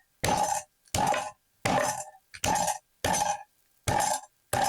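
Butterflied chicken breast being pounded thin: steady blows, about one and a half a second, seven in all, each a sharp knock with a brief ring.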